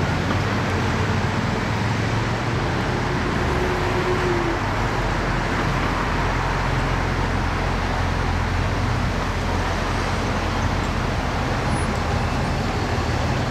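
A Corvette Sting Ray convertible's engine running at a low, steady idle as the car creeps slowly past, over steady background street noise.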